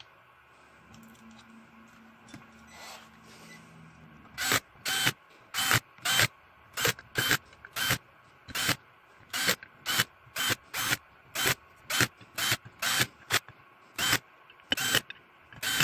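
A cordless drill/driver runs in about twenty short trigger bursts, one or two a second, starting about four seconds in, as it drives 6-32 machine screws down into an aluminum heat-exchanger lid.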